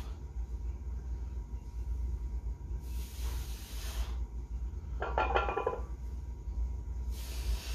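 Breathy exhales from a lifter doing barbell back squats, about one every four seconds, over a steady low hum. A brief louder sound comes about five seconds in.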